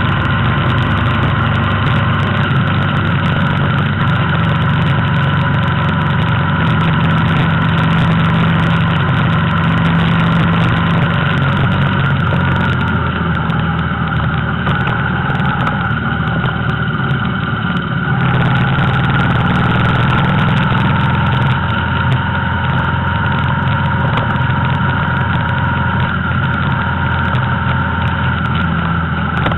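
Vehicle engine running steadily on the move, with road noise; its tone shifts slightly about a third of the way in and again just past halfway.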